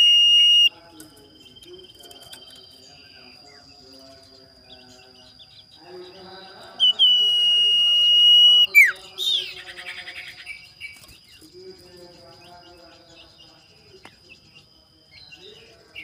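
Caged common iora (cipow/sirtu) singing its challenge song: long, steady, high whistled notes. The loudest comes about seven seconds in, is held for about two seconds, then drops sharply in pitch and breaks into a brief harsh chatter.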